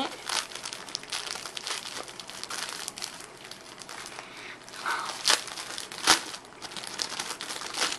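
Thin plastic packaging bag crinkling and crackling as it is opened by hand, in an irregular run of rustles, with the sharpest crackles a little past five and six seconds in.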